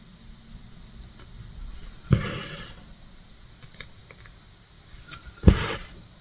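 Needle pushed through cross-stitch fabric and the floss drawn through with a swish, twice, about three seconds apart, with faint small clicks in between.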